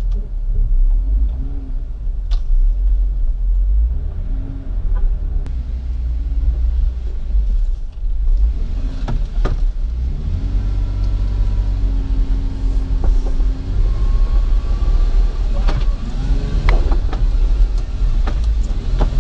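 Jeep engine running low and steady under load as it crawls up a rocky trail, with a deep rumble and scattered sharp knocks and clunks from the tyres and underbody meeting rock.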